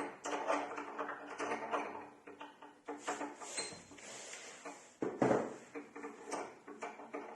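Metal door lock parts clicking, rattling and knocking as they are handled and fitted back together, in irregular short bursts with a louder knock about five seconds in.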